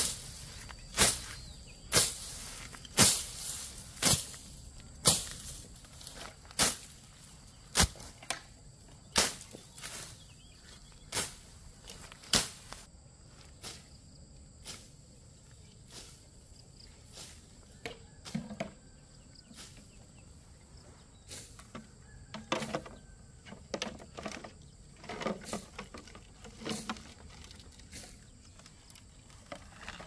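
Sharp knocks or strikes at about one a second, thinning out after about twelve seconds, with a few short low-pitched sounds in the second half.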